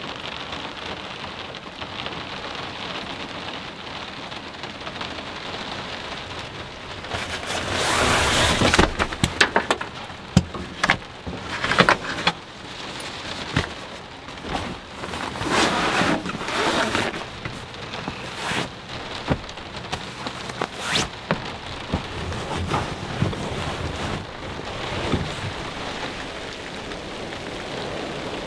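Heavy rain falling steadily. From about seven seconds in it swells louder several times, with a scatter of sharp knocks through the middle.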